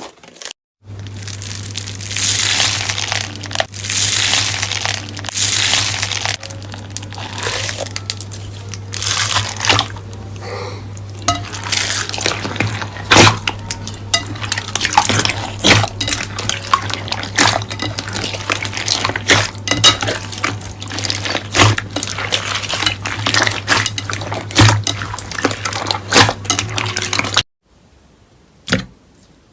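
Slime being squeezed and worked by hand: wet squelching swells packed with sharp sticky clicks and pops, over a steady low hum. It stops abruptly near the end, leaving faint clicks.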